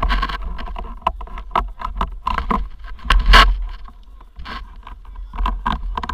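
Low wind rumble on an action camera's microphone, with irregular scrapes and knocks close to it, the loudest about three seconds in.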